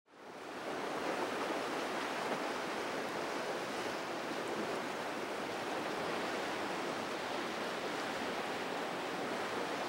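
Steady rush of ocean waves and surf, fading in over the first second and then holding even.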